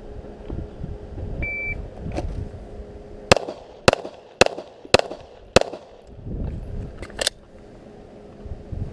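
A shot timer gives one short beep. About two seconds later a Glock 17 9mm pistol fires five shots in quick succession, about half a second apart. Two fainter sharp cracks follow near the end.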